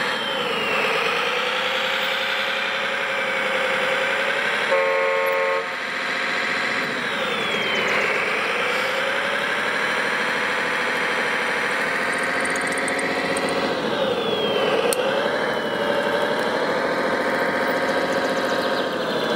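Engine sound of an RC Liebherr 741 crawler dozer model, its pitch sinking and climbing again in several swells as it drives. A short horn honk sounds about five seconds in.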